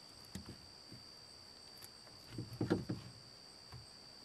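Plastic water pump, accumulator tank and fittings being handled on a plywood workbench: a light click about half a second in, then a short cluster of knocks and scrapes a little past halfway. A steady high-pitched whine runs underneath.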